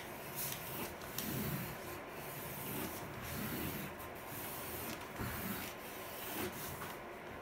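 Pencil sketching on a large sheet of paper, a soft scratchy rubbing that comes in a series of strokes about once a second.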